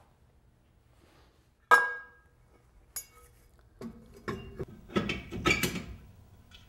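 Metal rear brake drum being handled and refitted: a sharp, ringing clank about 1.7 seconds in, a click a second later, then a run of clinks and scrapes as the drum is slid over the brake shoes onto the hub's wheel studs.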